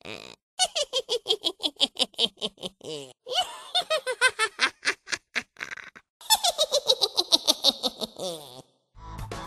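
High-pitched giggling laughter, "hehehehe", in three bouts of rapid pulses, each falling in pitch.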